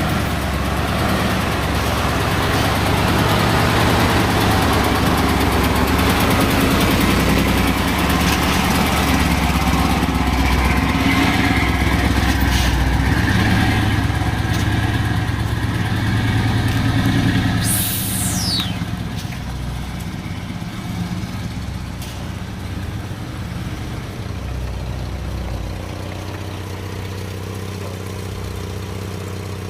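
Heavy machine engine running under load, busy and loud for the first two-thirds, then dropping to a lower, steadier idle. A short high falling whine comes just as the level drops.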